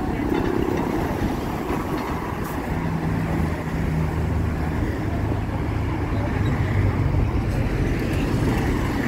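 Downtown street traffic with a city bus's diesel engine running close by. Its low, steady note comes in about three seconds in and carries on through the rest.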